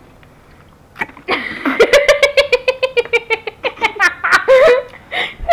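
A child laughing hard in quick, high-pitched repeated ha-ha's, starting about a second in.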